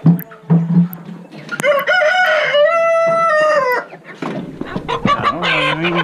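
A rooster crows once, a long call of about two seconds, with chickens clucking around it.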